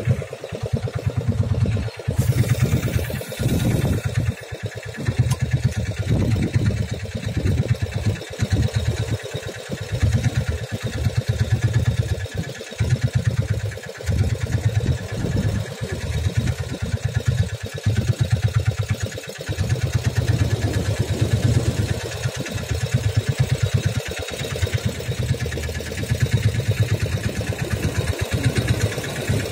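Small fishing boat's engine running steadily under way, a low drone that rises and dips irregularly.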